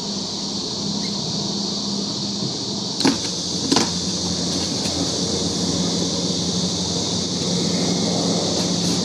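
Electric concrete core drill running steadily through a slab, with a constant motor hum and hiss. Two sharp knocks come about three seconds in, less than a second apart.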